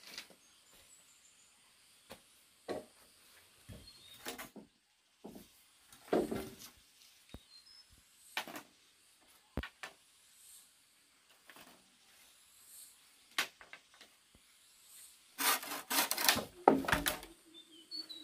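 Wood being handled and worked: scattered light knocks and scraping rubs, with a busier run of knocking and rubbing about three seconds before the end.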